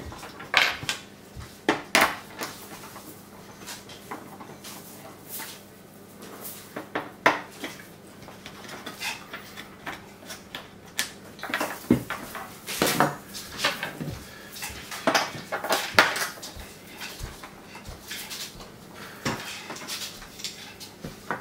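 Irregular clicks, knocks and clatter from hands working on a washing-machine door's plastic frame and setting small screws, hinge parts and a screwdriver down on a wooden table.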